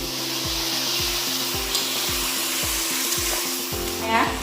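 Pork frying with spices in a hot pan, a steady sizzle.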